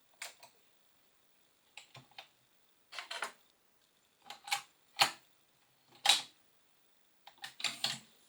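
Series of sharp mechanical clicks and clunks, coming singly and in quick pairs and triples, from an Onkyo TA-2550 cassette deck's controls and tape mechanism being operated.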